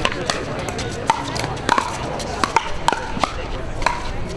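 Pickleball rally: paddles striking the hollow plastic ball back and forth, a series of sharp, uneven pops, sometimes two within half a second.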